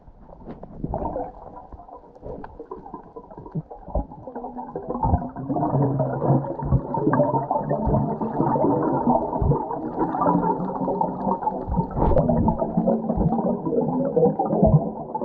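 Muffled water sound heard through an underwater camera: rumbling and gurgling that swells about five seconds in, with scattered short knocks.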